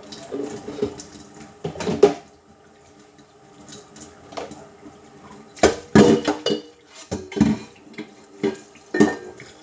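Dishes clattering and knocking in a stainless-steel kitchen sink during hand washing, with water running from the tap. Several sharp clatters, the loudest about two and six seconds in.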